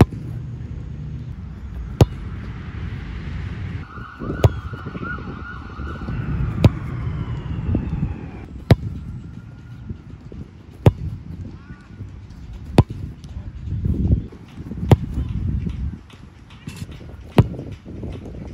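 A soccer ball struck hard with the left instep about every two seconds, each kick a sharp thud, nine in all. A siren wails in the background from about four seconds in to about eight, over a steady low rumble.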